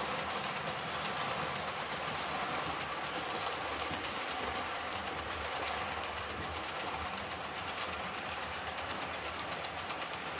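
A train of tank wagons running along the track, a steady rolling noise with fine rapid ticking, easing off a little toward the end.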